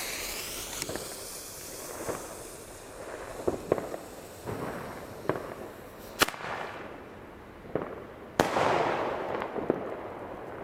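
Blue single-shot bombette tube from an Albert Glamour Shots set fired: a hissing launch as it sparks out of the tube, then scattered sharp pops and cracks. Two loud bangs come about six and eight seconds in, the later one trailing off in a hiss.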